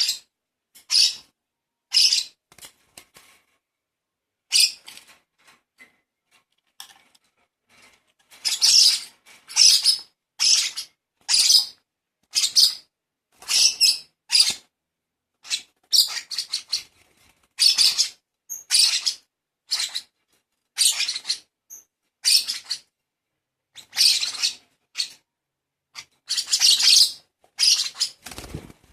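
Baby lovebird giving its begging calls (lolohan): short, raspy, high-pitched calls, a few scattered at first and then repeated about once a second.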